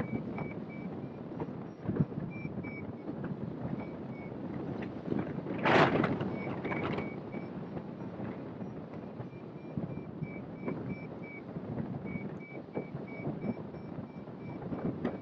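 Wind rushing over the microphone of a hang glider in flight, with a stronger gust about six seconds in. Through it run clusters of short, evenly spaced electronic beeps from a variometer, the tone it gives when the glider is climbing in lift.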